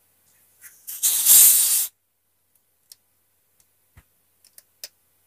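A plastic Coca-Cola bottle twisted open, the carbonation escaping in a loud hiss that lasts about a second, followed by a few faint clicks.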